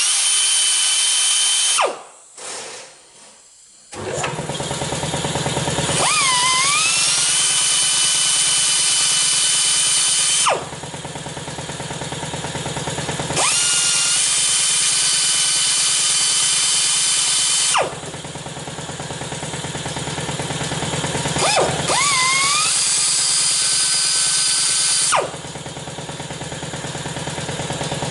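High-pitched rotary grinding tool whining as it cuts into the axle bushing inside an automatic transmission case, to weaken the bushing for removal. It runs in four bursts of a few seconds each with short pauses, the pitch dipping and climbing as each burst starts, over a steady low hum from about four seconds in.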